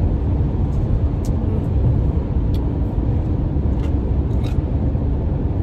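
Steady road and engine noise inside a moving car, a low even rumble.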